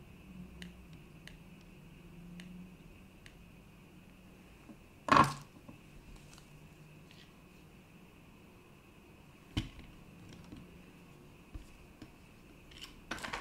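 Small knocks and clatters of things being handled and set down on a workbench, the loudest about five seconds in, a smaller one near ten seconds and a few more near the end, over a faint steady high tone.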